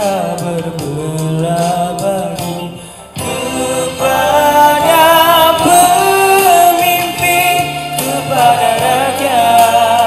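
A young man singing a Malaysian patriotic song into a handheld microphone over a backing track. The music dips briefly about three seconds in, then comes back fuller and louder.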